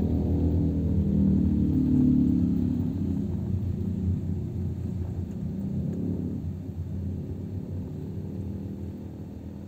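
Low rumble of a car driving slowly along a street, loudest in the first few seconds and gradually fading toward the end.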